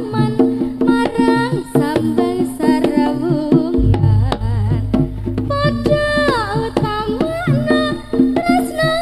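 Live Javanese jaranan music: kendang hand drums play a busy beat under a melodic lead that bends and slides in pitch. A deep low tone comes in about four seconds in.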